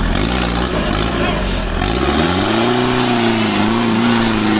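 Toyota off-road pickup's engine revving hard under load, its pitch rising about two seconds in and then held high with small wavers as the truck climbs a muddy slope.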